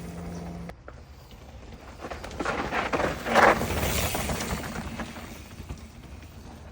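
Mountain bike tyres crunching and skidding over loose dirt and gravel, with a loud crunch about three and a half seconds in. A faint steady hum, likely the e-bike's mid-drive motor, cuts off under a second in.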